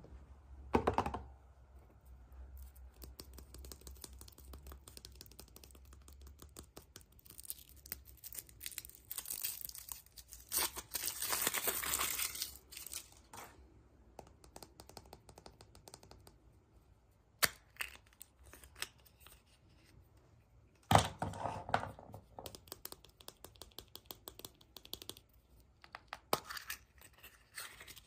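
Wrapping being torn open and crinkled by hand, with a run of small clicks and taps. The longest tear comes a little before halfway, and a few sharper knocks come later.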